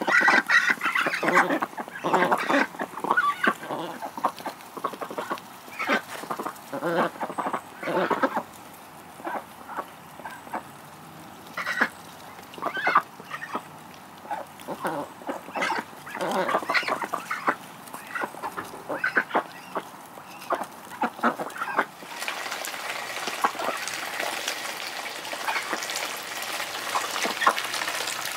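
A small flock of domestic ducks quacking and chattering in many short, irregular calls. About three-quarters of the way through, a steady hiss of running hose water starts and carries on under the calls.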